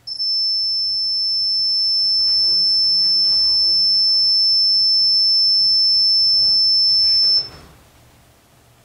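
REM pod alarm sounding one continuous high-pitched tone for about seven seconds, then cutting off suddenly. The tone means the pod has been triggered by something disturbing its electromagnetic field.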